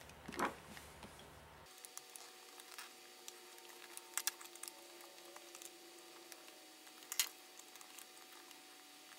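Faint clicks and small taps of a precision screwdriver and screws being worked out of a white plastic MacBook bottom case, with a few sharper clicks: near the start, about four seconds in and about seven seconds in.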